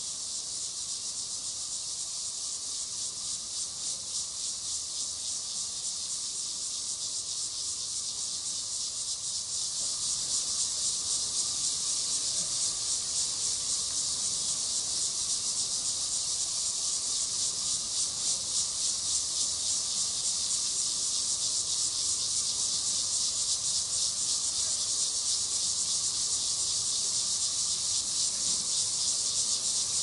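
A dense, high-pitched chorus of insects buzzing with a fast, even pulsing. It swells a little about a third of the way in and then holds steady.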